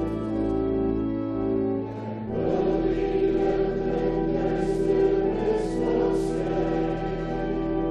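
Church congregation singing an Afrikaans hymn together, with long held bass notes beneath that change about two and a half seconds in.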